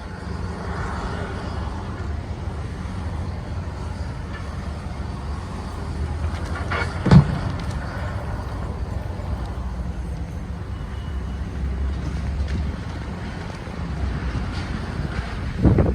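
Backhoe's diesel engine running steadily at a demolition site, with a single loud crunching impact about seven seconds in and a few more knocks near the end as the machine breaks up material.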